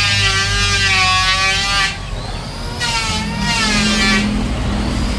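Handheld electric woodworking power tool cutting wood in repeated passes of about two seconds. Its motor whine bends in pitch as it is loaded, over a steady low hum.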